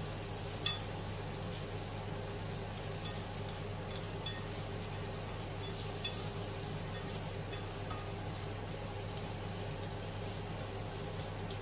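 Sliced onion, mushrooms and carrot sizzling in a nonstick frying pan as they are stirred and tossed with chopsticks, with a few sharp clicks of the chopsticks against the pan, the loudest about a second in.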